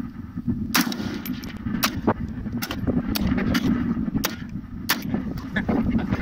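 Rifle shots from a short-barrelled AR-pattern gun fired off a rest, about ten sharp cracks at uneven intervals of roughly half a second. The footage is fast-forwarded, so the shots come closer together than they were fired.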